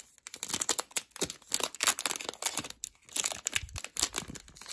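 Foil trading-card booster pack wrapper crinkling and tearing as it is opened, in a quick run of irregular crackles.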